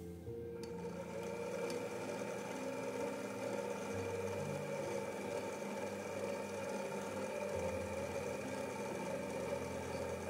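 Stand mixer's motor running at low speed, turning a dough hook through a wet dough in a steel bowl. It is a steady whir that starts about half a second in.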